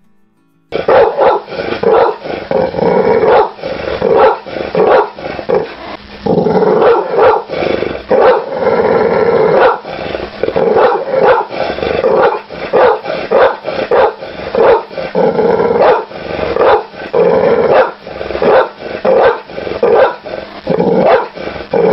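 An angry dog barking and growling, with loud barks repeating in quick succession over continuous snarling, the sound of an aggressive, warning dog. It starts just under a second in.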